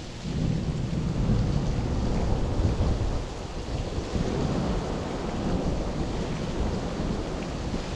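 Heavy rain falling, with a steady low rumble underneath.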